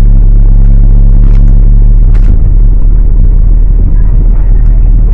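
Loud, steady low rumble of a vehicle on the road, with a few faint clicks and rattles over it.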